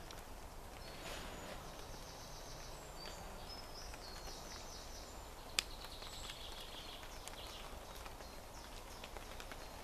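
Woodland ambience with a small songbird singing several fast, high trilled phrases, along with scattered faint ticks and one sharp click a little past halfway.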